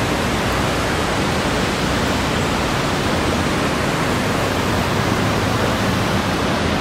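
Steady outdoor ambient noise: an even, unchanging rush spread across all pitches, with no distinct events in it.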